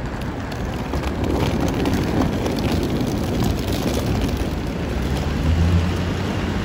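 Suitcase wheels rolling over pavement, a steady rushing rattle with many small clicks, over traffic noise. A low vehicle hum comes up about five seconds in.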